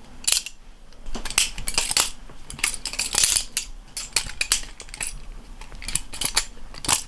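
Stainless steel GoFlipping budget balisong (butterfly knife) being flipped: a run of irregular metallic clicks and clacks as the handles and blade swing and knock together.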